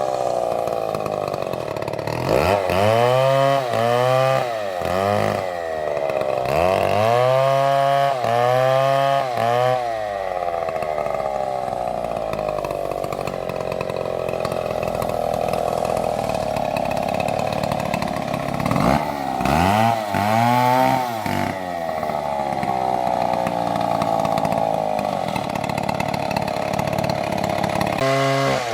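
Stihl MS720 chainsaw's two-stroke engine revved up and down in quick bursts several times, with long stretches held steady at full throttle while it cuts through a tree trunk.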